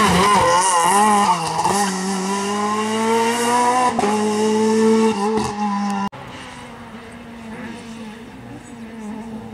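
Renault Clio rally car engine at high revs, its pitch wavering quickly at first, then climbing and dropping in steps with gear changes. After a sudden cut about six seconds in, a much quieter rally car engine is heard further off.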